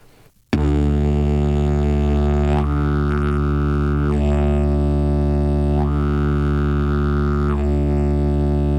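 Didgeridoo drone starting about half a second in and held steadily. Its tone alternates between brighter and duller every second and a half or so as the player switches between open and closed cheeks without breaking the drone.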